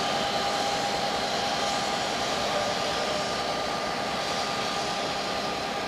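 EMD GP30 diesel-electric locomotive running as it rolls slowly past: a steady rushing engine noise with a steady high whine through it.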